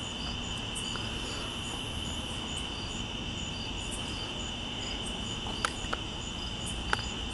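Steady night chorus of crickets trilling, with a second insect pulsing in a regular rhythm higher up. Under it runs the low rumble of a long freight train rolling slowly past, and two sharp clicks come near the end.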